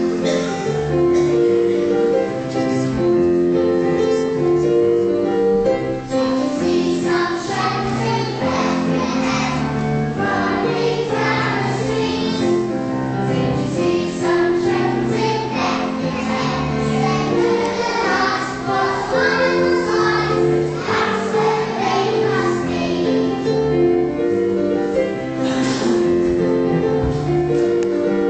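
A group of children singing a song together as a choir over instrumental accompaniment of steady held notes. The accompaniment plays alone at first, and the children's voices come in about seven seconds in.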